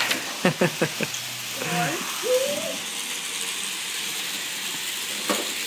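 A run of quick clicks, then a young child's short, high-pitched vocal sounds, one gliding up and back down, about two seconds in, and a single click near the end.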